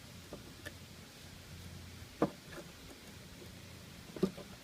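Two sharp knocks about two seconds apart, with a few lighter clicks, from handling the bee package and hive, over a faint steady low hum of honeybees.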